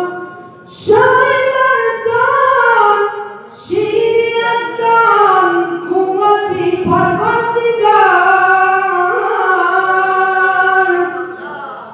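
A boy's high voice singing unaccompanied into a microphone, in long held, sliding melodic phrases with short breaths between them.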